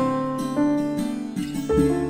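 Background instrumental music: a quick run of plucked, guitar-like notes over a sustained bass line.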